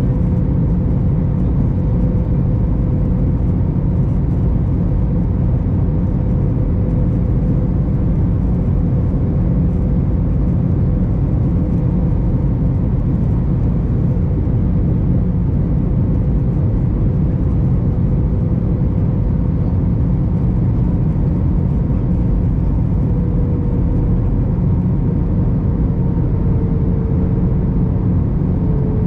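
Steady cabin noise inside an Airbus A321 airliner in flight: a loud, even rumble of the engines and rushing air. A thin steady hum sits over it and dips slightly in pitch near the end.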